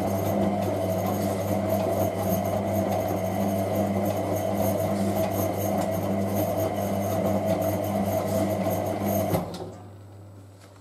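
Hotpoint 9530W washing machine's drum motor running as the drum tumbles a wet load of towels in the wash: a steady whine over a swishing hiss. The motor stops suddenly about nine seconds in, as the drum pauses between turns.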